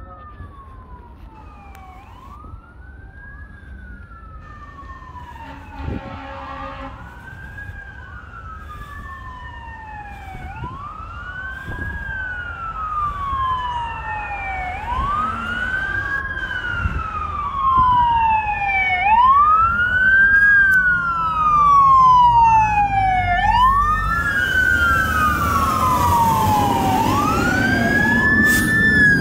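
Fire engine siren wailing on a code 3 response: a quick rise and slow fall repeating about every four seconds, with a second wail slightly out of step. It grows steadily louder as the apparatus approaches, and the truck's engine and road noise come in near the end as it reaches the camera.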